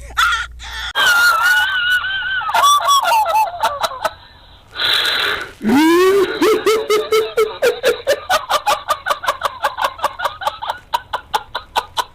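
A person laughing in a long run of quick, even bursts, about five a second, starting about six seconds in. Before it come wavering voice sounds and a short burst of noise.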